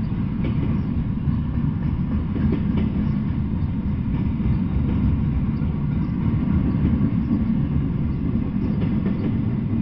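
Double-stack intermodal freight train rolling past on its well cars: a steady low rumble of steel wheels on the rails, with a few faint clicks scattered through it.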